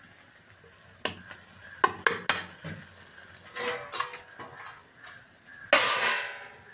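Clinks and scrapes of a utensil in an iron wok of frying vegetables, with faint sizzling. About two-thirds of the way through, a steel lid is clanged down onto the wok. This is the loudest sound, and it rings on as it fades.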